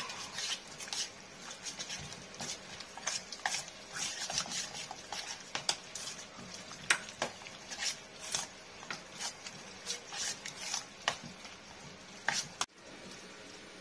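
Metal spoon stirring chicken pieces through a wet egg-and-starch batter in a stainless steel bowl, with irregular clinks and scrapes against the bowl.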